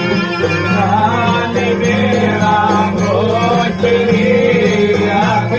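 Greek folk dance music from Western Macedonia, with a voice singing the melody over a steady instrumental accompaniment.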